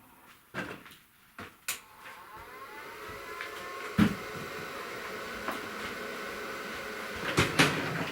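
A few light clicks and knocks, then an electric motor is switched on and spins up with a rising whine that settles into a steady running tone. Sharp knocks come about four seconds in and twice more near the end.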